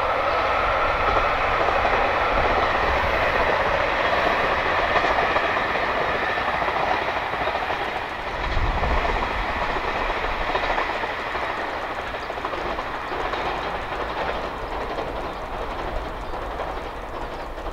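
Diesel train passing at speed, wheels clattering on the rails, the sound slowly fading as it goes by.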